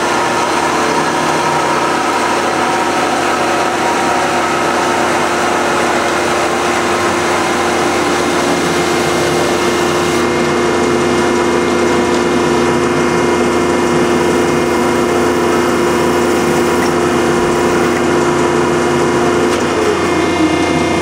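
Marvel 15A/S automatic horizontal band saw running steadily as its blade cuts through a tube, a constant machine hum with several steady whines.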